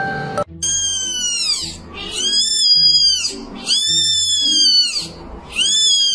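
Kitten meowing loudly four times, long high-pitched cries that rise and then fall, over background music.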